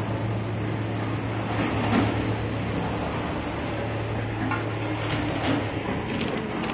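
Paper straw making machine for 9.8 mm five-ply straws running: a steady mechanical hum with a constant low motor tone and a few light clicks about two-thirds of the way through.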